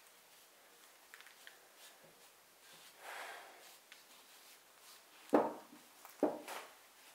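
A gloved hand rubbing a dark finish onto a wooden sabre grip: a soft rub about three seconds in, then two dull knocks about a second apart, the loudest sounds, as the hilt is handled on the wooden bench.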